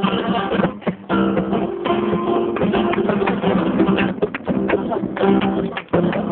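Acoustic flamenco guitar strumming chords, with brief pauses between phrases about a second in and near the end.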